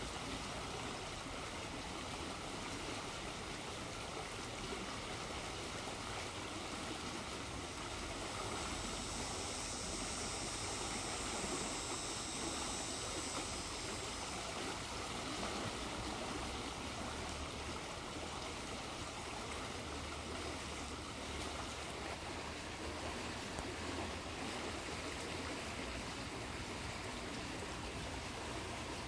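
Small shallow stream rushing and bubbling over a riffle, a steady even flow.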